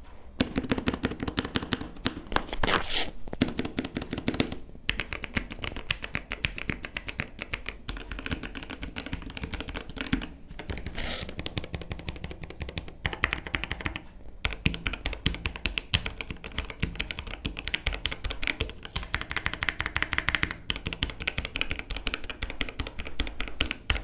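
Gateron Brown tactile switches and dye-sub keycaps on a Paradox Gaming Ghost ZX68 mechanical keyboard being typed on quickly: a dense run of key clacks with a few brief pauses, picked up with the microphone close to the keys.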